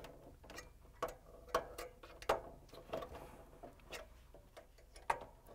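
A handful of light, irregular plastic clicks and taps as the locking tabs on an LG/Kenmore microwave's outer door frame are pried free one after another.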